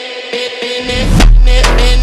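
Electronic background music with a steady beat; a heavy bass and drums come in about a second in.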